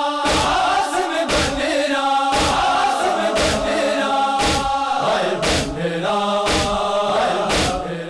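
A male group chanting a Punjabi noha in unison, with a heavy beat about once a second: the mourners' rhythmic chest-beating (matam) keeping time.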